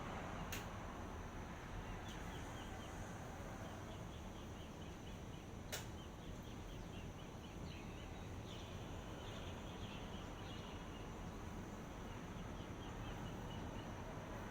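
Outdoor dawn ambience: a steady hiss with a thin, steady high whine, and faint small-bird chirps repeating quickly through the first part. Two sharp clicks stand out, one right at the start and one about six seconds in.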